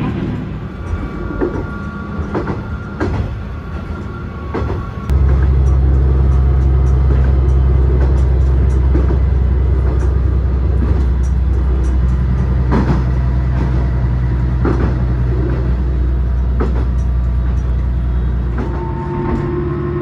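Diesel railcar running, heard from inside: the engine's steady drone with wheels clicking over the rail joints. About five seconds in it jumps to a much louder low drone, which eases slightly near the end.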